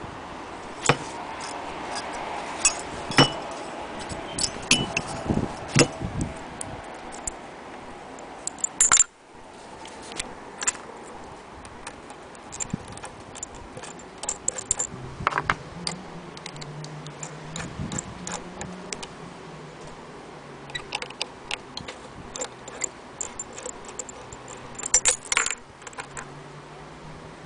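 Scattered small metallic clicks, clinks and taps from an antique Willcox & Gibbs sewing machine being handled, with a brief break about nine seconds in. A faint low hum runs underneath in the second half.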